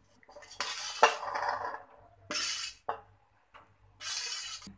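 Cooked rice being tipped and scraped out of a steel vessel into a steel biryani pot, in three scraping, hissing bursts, with a sharp clink of steel on steel about a second in.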